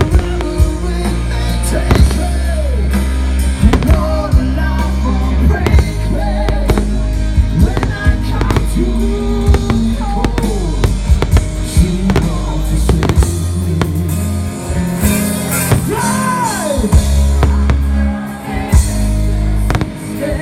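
Loud music with a heavy drum beat accompanying a fireworks display, with sharp firework bangs going off irregularly among the beats.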